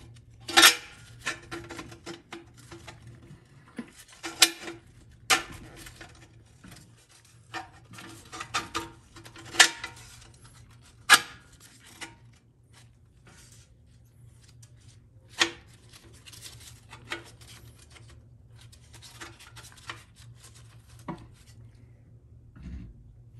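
GM TH400 rear band clinking and rattling against the transmission case as it is worked onto its anchors, with irregular sharp metallic clacks, most of them in the first half and only a few near the end. A low steady hum runs underneath.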